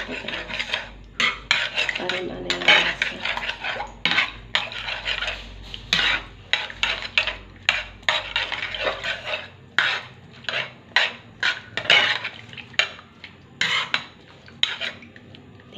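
Metal spoon stirring chopped vegetables in vinegar and water in a nonstick frying pan, with repeated irregular clinks and scrapes against the pan.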